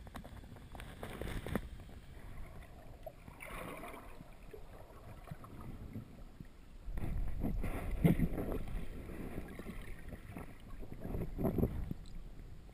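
Muffled water movement heard through an underwater camera housing, with faint knocks. The sound grows louder about seven seconds in, peaks briefly about a second later, and swells again shortly before the end.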